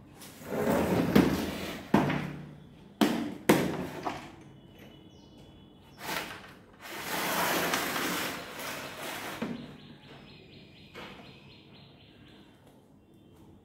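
Rustling and handling of the drill kit's packaging, with sharp clicks about two, three and three and a half seconds in, and a second, longer stretch of rustling after them.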